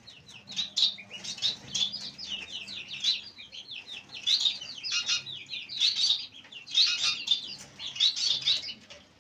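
A crowd of baby chicks peeping together: a dense, unbroken stream of short, high-pitched cheeps overlapping one another.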